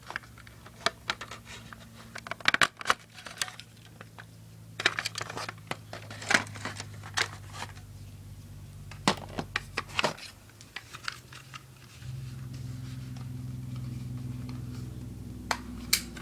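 A battery being taken out of one smoke alarm and fitted into another: scattered clicks, scrapes and plastic rattles from handling the detector cases and battery.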